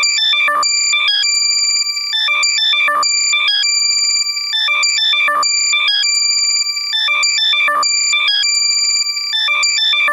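Loud, heavily compressed electronic alert tone for finding lost AirPods: quick runs of high beeps alternating with held high-pitched tones, the pattern repeating about every two and a half seconds.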